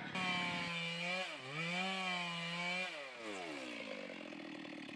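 Stihl two-stroke petrol chainsaw revving at high speed. Its pitch dips briefly about a second in, recovers, then falls steadily as the engine drops back toward idle near the three-second mark.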